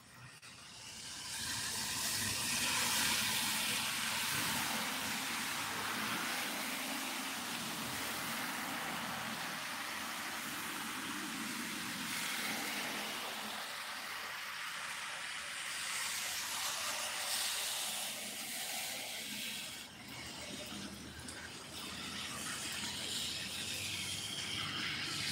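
Car tyres hissing through standing rainwater on a flooded road as traffic passes, swelling and easing as vehicles go by.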